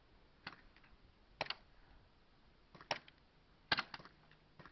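Airsoft guns firing single sharp pops, irregularly about a second apart, with a quick run of three shots near the end.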